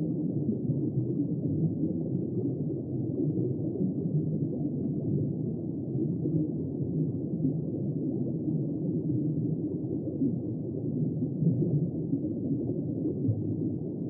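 Steady, muffled low rumble of underwater ambience, even throughout with no distinct calls or clicks.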